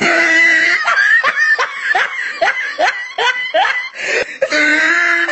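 A person laughing hard: a drawn-out note, then a run of short rising "ha" sounds, about three a second, then another long note near the end.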